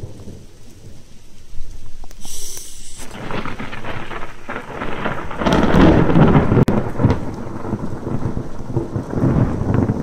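Thunder from a severe thunderstorm, rolling in as a low rumble that swells from about three seconds in and is loudest around the middle, with rain falling throughout.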